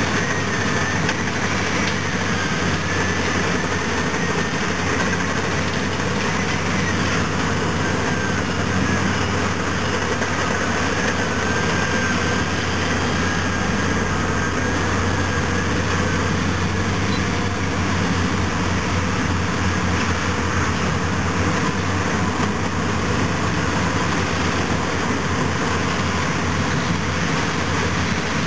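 Diesel engines of a Caterpillar D10T push dozer and a Caterpillar 651B wheel tractor-scraper running steadily under load as the dozer push-loads the scraper. A faint high whine wavers over the first half.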